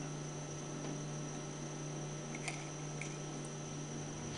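Steady low electrical hum with a thin high whine over it, and two faint light clicks a little past halfway as small valve parts are handled on a brass pump manifold head.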